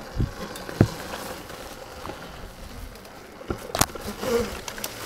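Electric dirt bike riding a rough trail: a thin buzzing whine over a steady rush of noise, with a few sharp knocks and clunks, the loudest about a second in and another near four seconds.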